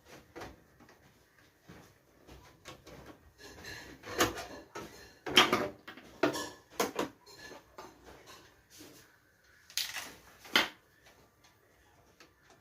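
Desktop PC parts being handled while the computer is taken apart: scattered clicks, knocks and rattles. They are loudest in a cluster about four to seven seconds in and in two knocks near ten seconds.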